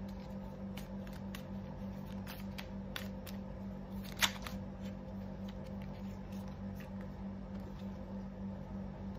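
Tarot cards being handled and dealt from the deck onto a cloth-covered table, making scattered light clicks and ticks, with one sharper snap about four seconds in. A steady low hum runs underneath.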